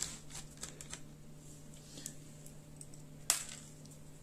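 Faint small clicks and taps of a screwdriver working the short palm-rest screws out of a laptop's base plate, with one sharper click about three seconds in.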